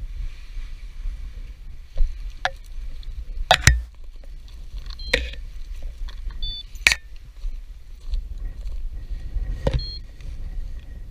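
Strong gusty wind rumbling on the microphone, with about six sharp knocks and rattles at uneven intervals, a few of them carrying a short ringing tone.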